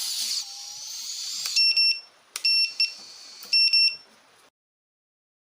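High whine of small brushless quadcopter motors (EMAX ECO 2400kv) spinning, dropping in level about half a second in, then three bursts of short, shrill electronic beeps like a piezo buzzer. The sound cuts off suddenly before the end.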